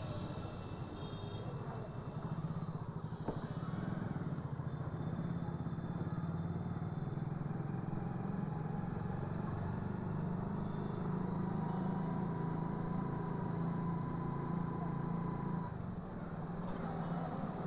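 A motorbike's engine running at a steady low speed as it rides along a narrow street, with a slight dip near the end.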